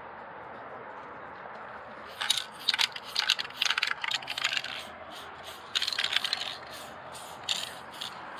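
Aerosol spray-paint can, a Montana Gold, hissing in a run of short, quick bursts as lines are sprayed onto a wall. The bursts start about two seconds in, come thickly for a couple of seconds, then return in a few shorter groups near the end.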